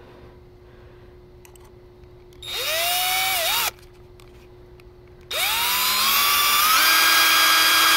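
Handheld electric drill: a short burst with a rising whine that stops, then about five seconds in it starts again, its whine rising and stepping up in pitch as it runs on, drilling a bolt hole straight through a plywood mount.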